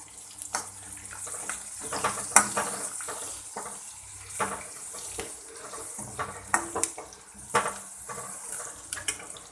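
Tempering of chopped onion, garlic, curry leaves and spices sizzling in hot oil in a pan, with a spoon clinking and scraping against the pan again and again as it is stirred.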